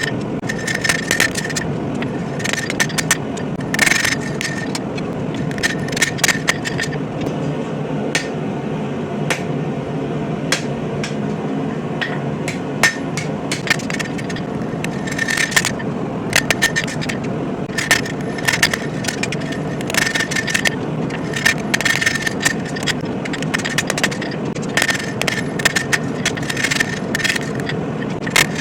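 Hammer blows on hot steel over an anvil, coming in irregular runs, each strike with a short metallic ring, over a steady rushing noise.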